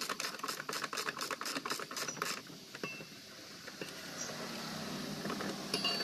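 Ratcheting screwdriver clicking rapidly, about seven clicks a second, as it turns the screws on the washing machine's motor and clutch mounting plate; the clicking stops about two and a half seconds in, and a fainter steady hum follows.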